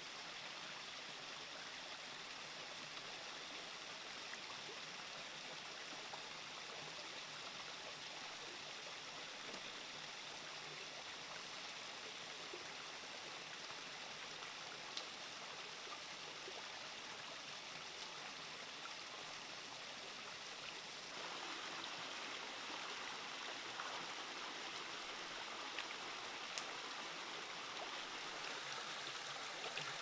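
Water running and splashing over rocks in a small waterfall and rocky stream, a steady rush that grows a little louder and brighter about 21 seconds in. A couple of faint clicks stand out.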